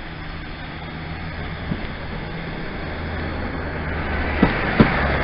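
Class 153 diesel railcar drawing into the platform and passing close by: a steady low engine drone with wheel-on-rail running noise, growing louder as it comes past, and two sharp clicks near the end.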